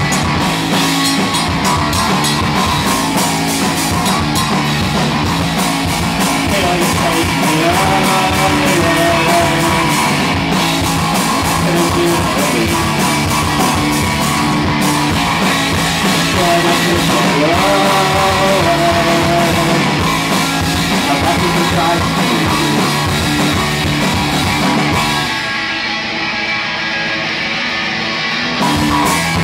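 A rock band playing live, with distorted electric guitar, bass and a drum kit. About 25 seconds in, the drums drop out and the guitar carries on alone for a few seconds. The full band crashes back in near the end.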